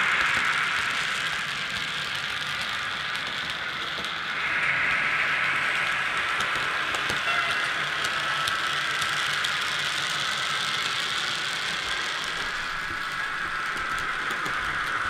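Piko HO-scale BB 60000 model diesel locomotive's digital sound decoder playing a diesel engine sound through its small on-board speaker, with the light clicking and rattling of the model's wheels and wagons on the track. The sound gets louder about four and a half seconds in.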